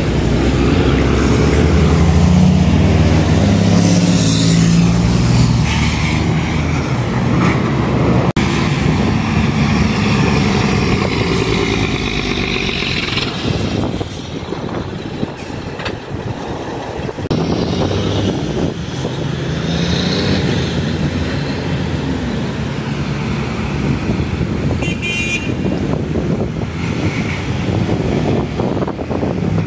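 Heavy diesel truck with its engine brake (jake brake) firing loudly: a deep, stacked engine note for the first several seconds, then fading into the road and traffic noise of passing vehicles.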